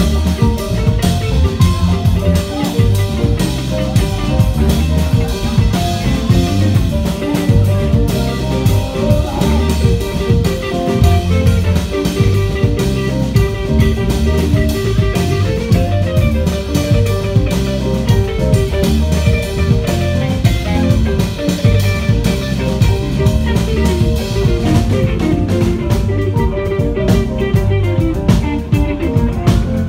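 Live band playing an instrumental passage: electric guitar and drum kit with keyboard, loud and continuous.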